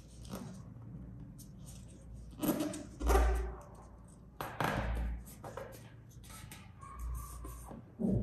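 Crisp crinkling and rustling of a paper one-dollar bill being folded and pressed into creases by fingers, in several short bursts, the loudest about three and five seconds in, some with a soft low thump of the hands pressing it against the table.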